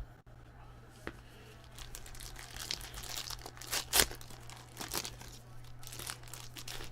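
Foil trading-card pack wrapper being torn open and crinkled as football cards are pulled out, an irregular crackle with one sharper crack about four seconds in.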